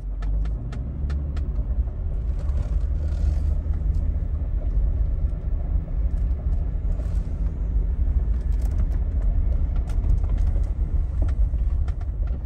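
Jeep Rubicon driving slowly over a gravel road, heard from inside the cabin: a steady low rumble of engine and tyres, with scattered light clicks and crackles.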